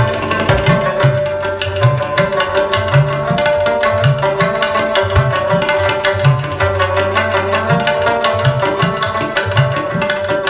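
Instrumental regional folk music with rapidly plucked strings over a steady held tone, and a hand drum of the tabla kind playing low strokes that bend in pitch.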